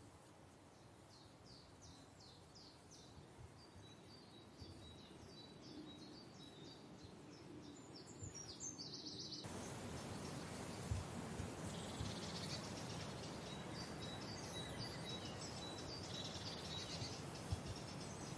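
Birds chirping in rapid, high, repeated notes over steady outdoor background noise. About nine and a half seconds in, the background suddenly becomes louder and the chirping continues, with a couple of brief faint knocks.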